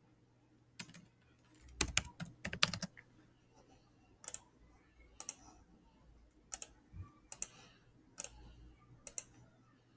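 Computer keyboard typing: a short run of keystrokes about two seconds in, then single clicks spaced about a second apart.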